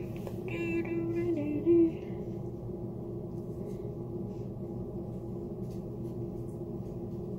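A steady low hum, with a person's short hummed, voice-like sound between about half a second and two seconds in.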